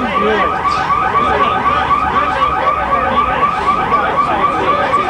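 Electronic alarm sounding: a rising warble repeating about five times a second without a break.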